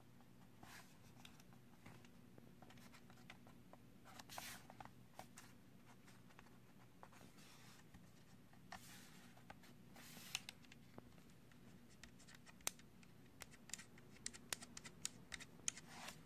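Faint handling sounds on the underside of an MSI GS73VR laptop: fingers rubbing and scraping over the casing and feet, with scattered small clicks that come thicker in the last few seconds, over a low steady hum.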